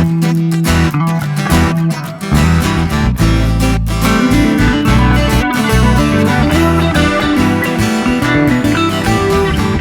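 Background music: guitar-led track with plucked and strummed guitar over a bass line and a steady beat.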